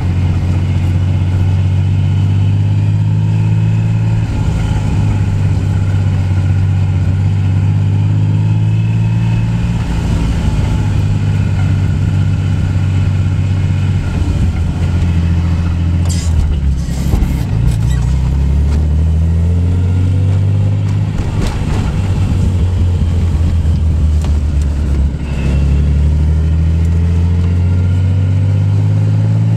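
Nissan 300ZX (Z32) V6 engine, heard from inside the cabin, pulling up through the gears: its pitch climbs, drops at each shift and climbs again, several times over. A short cluster of sharp pops comes about halfway through.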